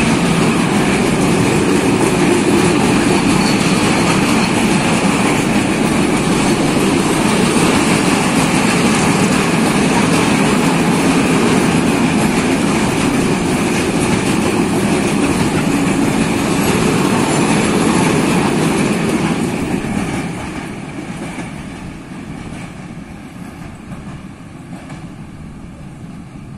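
Freight train of PKP Cargo open-top wagons rumbling past close by, steel wheels running on the rails. About twenty seconds in the noise falls away as the last wagon clears and the train recedes.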